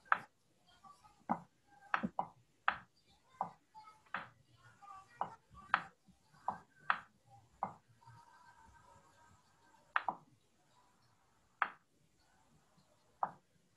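A run of sharp, irregular taps or clicks, roughly one a second, against faint background murmur.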